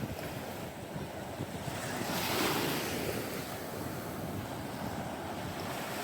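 Ocean surf washing in, with wind buffeting the microphone; a wave surges up about two seconds in.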